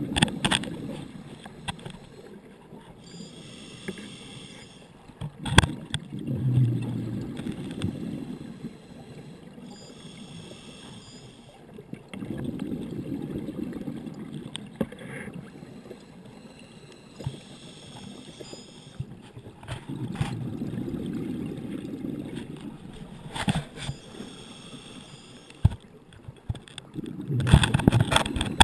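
A scuba diver's regulator breathing underwater. A hissing inhale is followed by a burst of bubbling exhale, in a slow cycle of about seven seconds that repeats four times. A few sharp clicks come in between.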